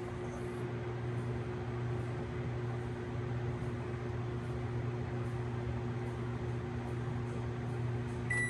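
Whirlpool WMH1163XVS-1 over-the-range microwave running empty: a steady electrical hum over the whir of its fan. A beep sounds at the very end.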